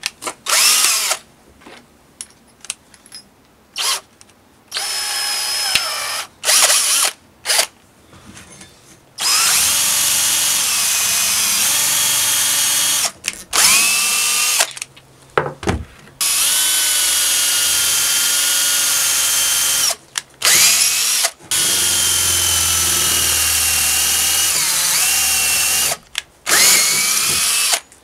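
Cordless drill boring out the old wooden handle stuck in an axe head's eye. A few short trigger bursts, then long runs of steady motor whine that rise in pitch as the motor spins up at each start and sag briefly under load.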